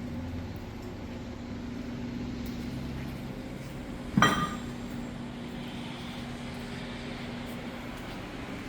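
A single sharp metallic clink that rings briefly, about four seconds in, over a steady low hum.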